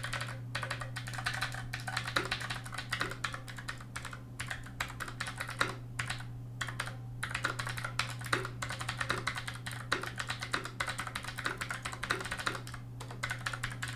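Typing on an Armaggeddon SMK12R mechanical keyboard with Outemu low-profile blue clicky switches: a fast, continuous patter of sharp key clicks, broken by a few short pauses.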